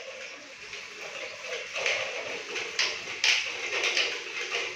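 Small brush scrubbing and scraping at a plastic toilet cistern fill valve, with a few sharp plastic clicks. The valve's lock is jammed with dirt, which the plumber gives as the reason the cistern fills slowly.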